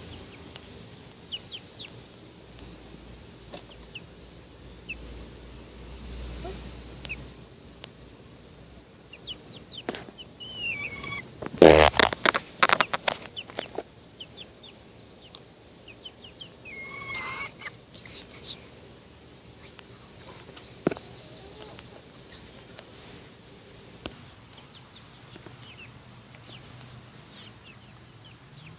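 Chickens clucking and calling on and off, with a loud, brief flurry of rustling about twelve seconds in.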